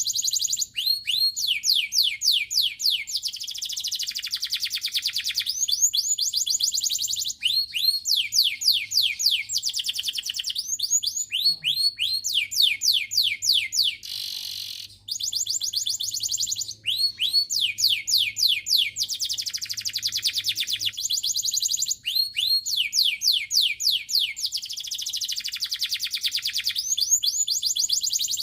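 Canary singing a continuous, high-pitched song of rapid trills: fast runs of repeated falling notes alternate with buzzy rolled passages, changing every second or two. There is only a brief break about halfway through.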